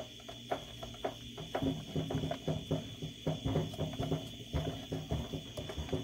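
Wooden spoon scraping and knocking against a cast-iron skillet as charred egg yolks are stirred hard over the heat, in quick, irregular strokes, while the yolks are cooked down to render their oil.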